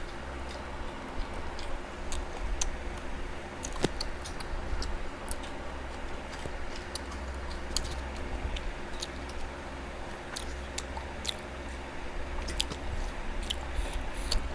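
Close-up eating sounds: chewing with scattered small mouth clicks and smacks, over a steady low hum.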